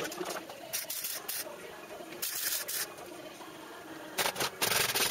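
MIG welder laying tack welds on a steel floor-pan repair patch: short bursts of hiss, several in the first three seconds and a longer run near the end.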